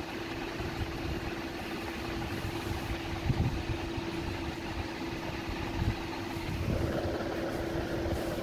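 Wire whisk beating a wet flour batter in a plastic bowl, a soft continuous swishing and scraping, with two faint knocks along the way. A steady low hum runs underneath.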